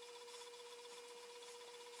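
Near silence: a faint, steady high-pitched hum over hiss, with no audible tool strokes.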